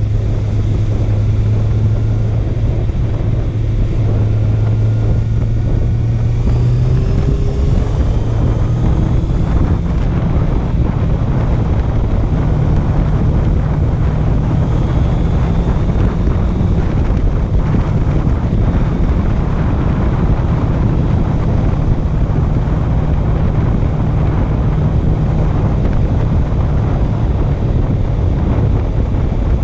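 Honda CB650F's inline-four engine running on the move, under heavy wind rush on the microphone. Its pitch steps up about seven seconds in and holds higher.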